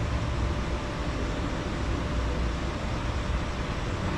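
Steady outdoor noise: a low rumble with a hiss above it, and no distinct event.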